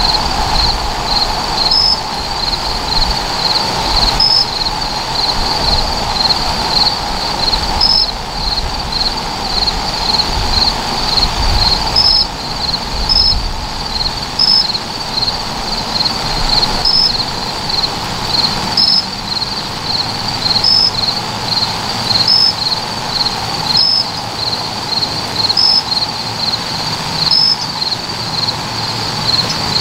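Crickets chirping in a steady, fast-pulsing chorus, with a slightly higher chirp standing out every second or two.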